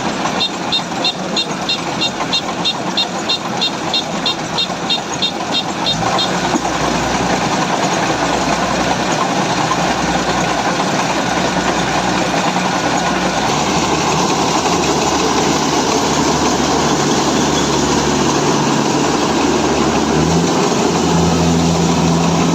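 Kubota DC-70G combine harvester's diesel engine and machinery running steadily, the engine's pitch shifting a few times. Over the first six seconds a rapid high-pitched beeping, about three beeps a second, sounds over it.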